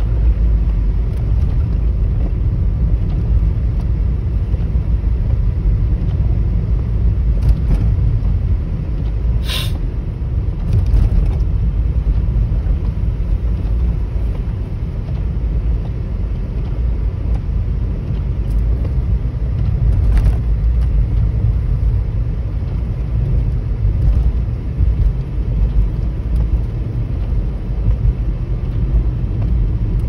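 Steady low rumble of road and wind noise inside a car's cabin, driving on a snow-covered road through a blizzard in strong wind. A few brief sharp clicks stand out, the clearest about a third of the way in and another about two-thirds in.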